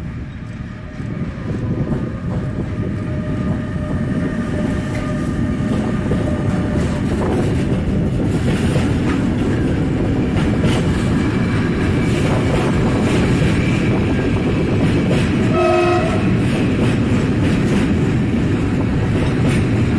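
Bombardier Traxx E186 electric locomotive hauling a container freight train through a station at speed without stopping. The rumble builds as the locomotive comes past, then the container wagons roll by with the steady rumble and clatter of wheels on rail. A short horn blast sounds about three-quarters of the way through.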